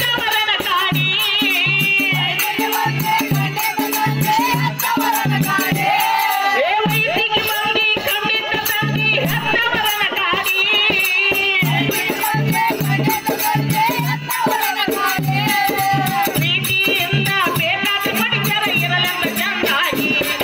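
A man singing a folk-style song live into a microphone, his voice wavering with vibrato, over a steady rhythmic accompaniment with a shaken-percussion sound.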